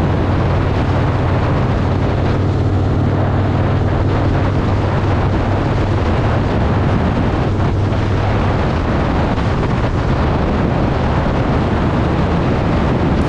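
Harley-Davidson V-twin motorcycle engine running steadily underway, with heavy wind noise on the microphone.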